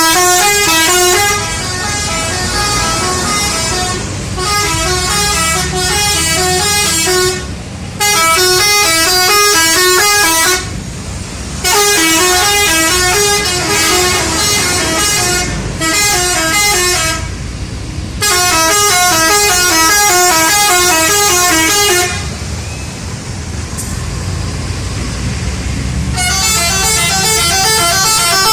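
Telolet bus horns playing quick, melodic multi-note tunes in repeated bursts of a few seconds each, over the low running of the buses' engines. Near the end the horns stop for about four seconds, leaving only engine rumble, then start again.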